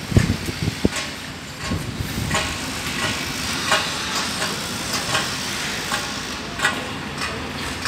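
Steady outdoor hiss with sharp knocks and clanks of construction work in the stadium, about one a second, as stadium seats are fixed in place.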